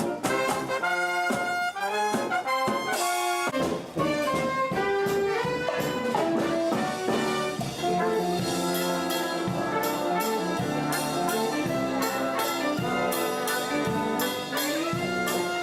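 Brass-heavy music playing a lively tune, with held and moving notes.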